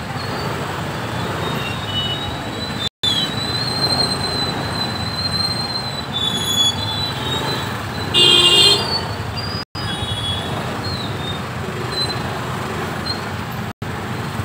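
Steady road-traffic noise from cars and motorbikes in slow traffic, with a vehicle horn honking briefly about eight seconds in. The sound cuts out for an instant three times.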